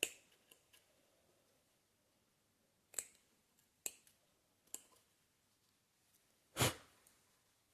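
Scissors snipping through cushion cloth: a handful of separate short, sharp snips about a second apart, the last one the loudest.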